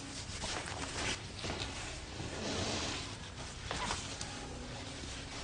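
A cloth rubbing and rustling over a cat's face and fur as its face is wiped clean, in several wiping strokes, the longest about halfway through.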